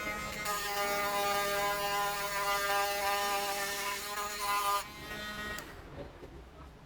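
Mini electric die grinder (rotary tool) running at speed with a steady whine, then stopping about five and a half seconds in.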